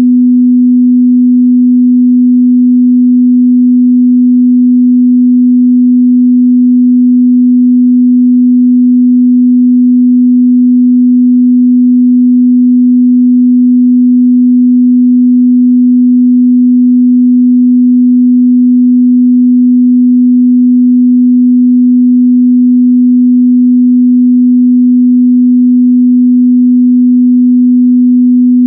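A steady, loud 248 Hz sine-wave test tone, one pure pitch held without change.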